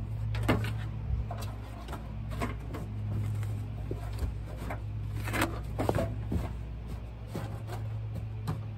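Stiff molded automotive carpet rustling and scraping as it is laid into a car's bare metal floor pan and pressed down by hand, with scattered short crinkles and taps over a steady low hum.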